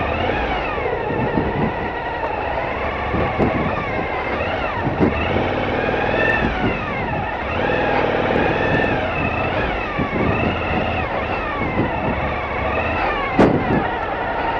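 Motorcycle engine revving up and down again and again while being ridden, over a steady rushing noise, with a sharp knock near the end.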